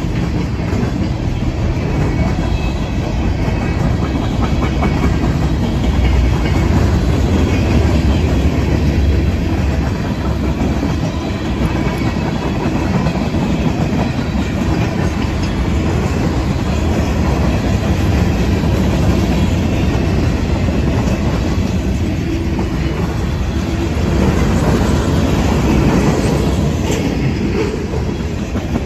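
Mixed freight cars of a long freight train rolling past close by: a steady rumble of steel wheels on rail with clickety-clack as the car wheels cross the rail joints.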